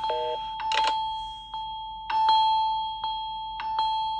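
Smartphone ringtone: bell-like electronic chime notes, struck several times at uneven intervals over one held steady tone that fades after each strike.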